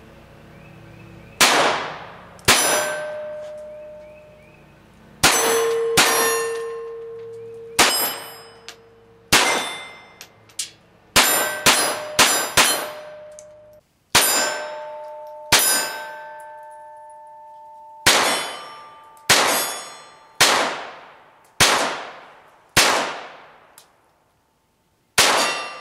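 Glock 44 .22LR pistol fired about eighteen times at an uneven pace, some shots in quick strings. Each shot is followed by the ringing clang of a steel target being hit.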